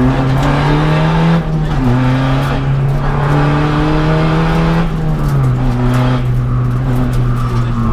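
Seat Ibiza TDI rally car's turbodiesel engine pulling hard, heard from inside the cabin. The engine note holds and climbs slowly, then drops with a gear change about a second and a half in and again about five seconds in.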